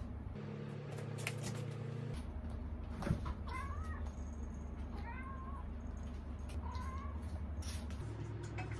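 A ginger house cat meowing three times at its owner's feet: short calls that rise and then fall, asking for attention. A single light knock comes just before the first meow.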